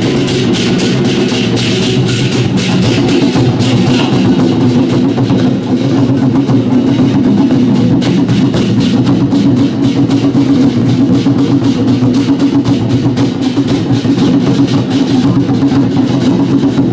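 Group drumming by a Cantonese-style drum troupe: several drums beaten in fast, continuous strokes.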